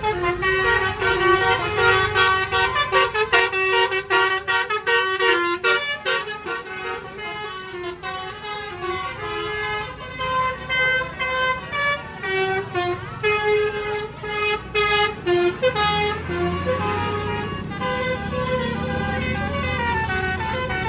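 Tour bus's basuri telolet multi-tone horn playing a fast melody of short, stepped notes. A low rumble rises under it in the last few seconds.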